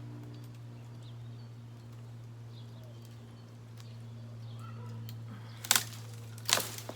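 Dead branches being cut or snapped off a tree: light rustling and ticking of twigs, then two sharp cracks near the end, a little under a second apart. A steady low hum runs underneath.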